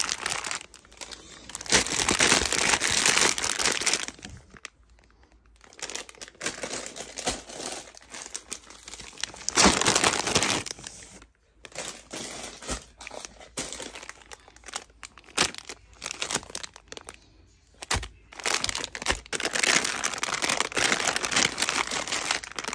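Plastic candy bags crinkling and rustling as they are handled and packed, in irregular bursts with short pauses between.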